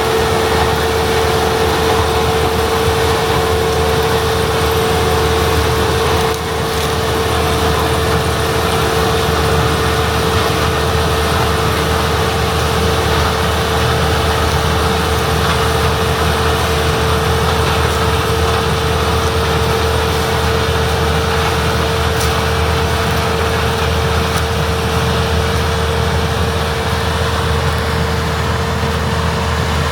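International Harvester 1660 combine with its DT466B diesel engine running steadily while harvesting corn. A low engine rumble sits under a steady whine from the threshing machinery.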